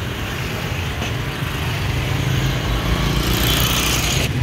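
Street traffic noise from a busy market road: a steady rumble of passing motorcycle and vehicle engines, with an abrupt change just before the end.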